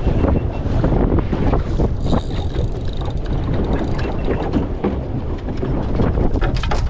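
Wind buffeting the microphone over choppy water slapping against a small boat's hull, with scattered short clicks and knocks.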